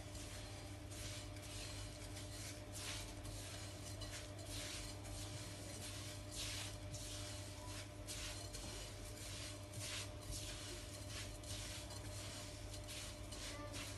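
Fingers rubbing and mixing granulated sugar, ghee and coconut in a glass bowl: soft, irregular scraping and rustling against the glass. A steady low hum runs underneath.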